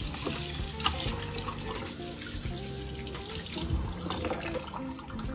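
Kitchen tap running into a sink as a pickled mustard head is rinsed under it, a steady splashing of water. Soft background music plays underneath.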